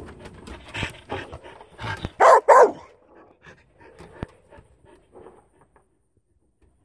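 Carolina dog giving a few short barks, the two loudest in quick succession a little over two seconds in.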